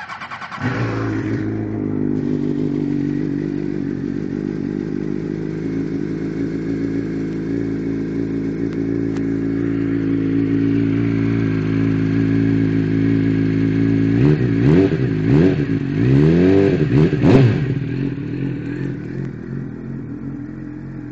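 Suzuki GSX-R600 K7's inline-four engine, breathing through an aftermarket Danmoto carbon-fibre GP exhaust, starts up and settles into a steady idle. About two-thirds of the way through it is blipped up in a few quick revs that rise and fall, then it drops back to idle.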